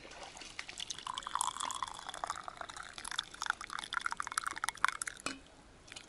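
Hot coffee poured from a half-litre thermos into a mug: a steady splashing pour that stops about five seconds in.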